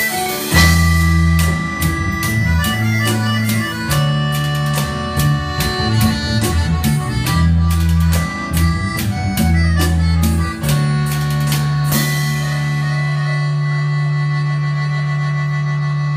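Live band music: an accordion plays a melody of held notes over electric bass and drums. About twelve seconds in, the drums stop and the band holds one long sustained chord.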